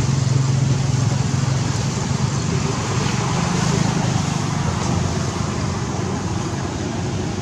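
Steady traffic noise: a motor vehicle's low engine hum over road noise, easing off slightly after about four seconds.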